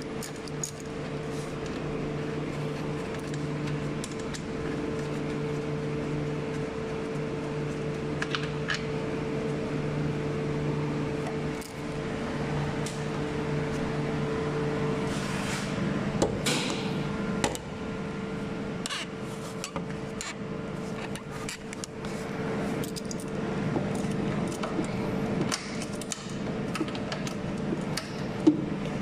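Hand tools (a small socket wrench with an extension) clicking and clinking against metal fasteners in a car's engine bay, in scattered short knocks. Under them runs a steady hum that shifts in pitch about halfway through.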